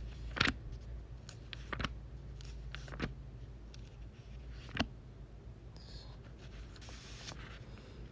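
Low steady hum of room tone with a handful of sharp clicks and taps, the loudest about half a second in and another near five seconds.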